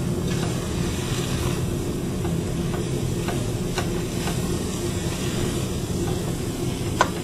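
Wooden spoon stirring sugar and glucose in a stainless-steel saucepan as they heat for nougatine caramel, with scraping, a few light taps against the pan and one sharper knock near the end. A steady low rumble runs underneath.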